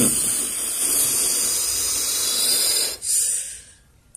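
A man blowing out a long breath through pursed lips, a steady hiss of air lasting about three seconds, followed by a second short puff.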